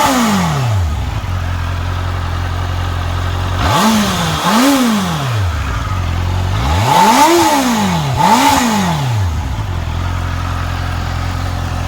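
Honda CBR650R's inline four-cylinder engine on its stock exhaust, idling with quick throttle blips. One rev dies away at the start, two quick revs come about four seconds in, and two more around seven to nine seconds, before it settles back to a steady idle.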